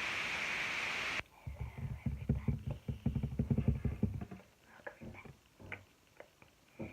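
A steady hiss cuts off abruptly about a second in, followed by slime being squished and kneaded by hand: a rapid run of wet popping and crackling clicks for about three seconds, thinning to scattered pops near the end.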